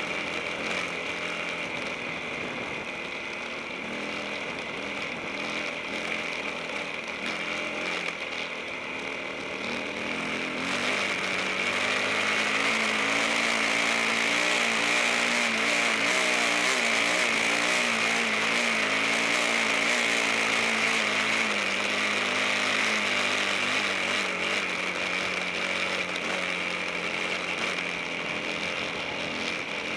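Off-road motorcycle engine running under load on a steep, rocky uphill climb, its pitch wavering with the throttle. It gets louder about a third of the way in and eases back near the end.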